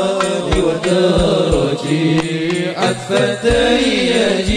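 Sholawat devotional music: a wavering melodic lead over a steady pattern of drum strokes.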